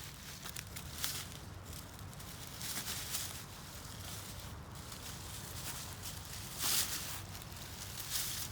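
Irregular rustling and crunching of dry leaves and twigs, with a few louder crunches about a second in, around three seconds in and near seven seconds.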